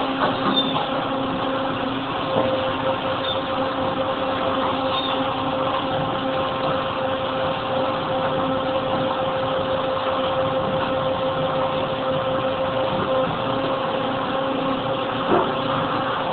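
Nissei FS260 292-ton injection molding machine running: a steady mechanical hum with a constant low tone, and a couple of faint knocks near the end.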